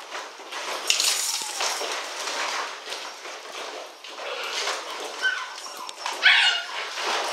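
Czechoslovakian wolfdog puppies playing, giving short yips and whimpers over rough scuffling; the loudest yelp comes about six seconds in.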